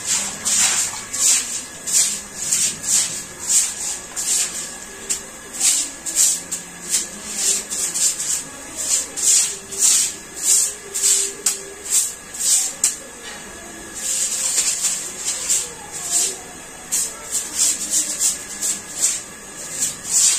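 Stiff hand broom scrubbing a wet tiled floor in short swishing strokes, about two a second, with a stretch of faster scrubbing about fourteen seconds in.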